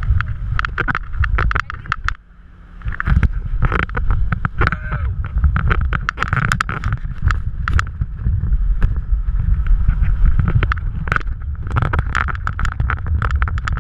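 Wind buffeting the microphone and water splashing and slapping against an inflatable towable tube being pulled at speed behind a motorboat, with many sharp splash knocks. The sound briefly drops about two seconds in.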